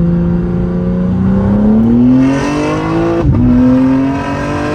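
BMW G82 M4's twin-turbo S58 inline-six, fitted with catless resonated downpipes, accelerating hard. The revs climb, drop sharply on a quick upshift about three seconds in, then climb again.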